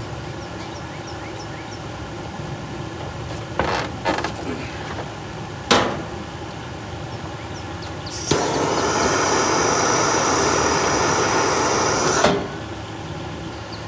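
Gas hissing steadily for about four seconds and stopping with a click, preceded by a few sharp clicks, at a portable gas fire pit that has just had its gas turned on.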